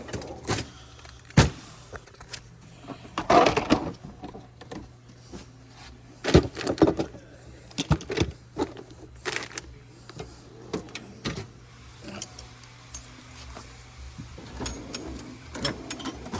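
Workshop handling noise: a run of irregular knocks, clicks and clatter as things are moved about, over a steady low hum.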